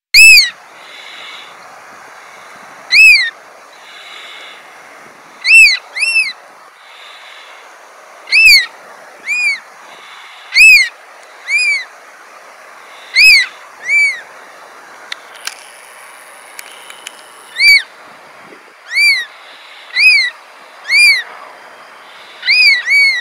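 Black oystercatchers giving sharp whistled calls, loud and high, each a short note that rises and falls in pitch. The calls come singly or in quick pairs every one to three seconds, about sixteen in all.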